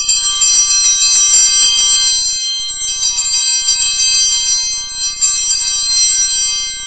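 A set of altar bells (Sanctus bells), shaken continuously as a bright, jangling ring, marking the elevation of the chalice at the consecration. The ringing starts suddenly and fades out near the end.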